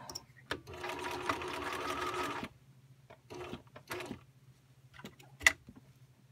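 Bernina 1010 mechanical home sewing machine stitching steadily for about two seconds, then two short bursts of stitches, followed by a single sharp click near the end.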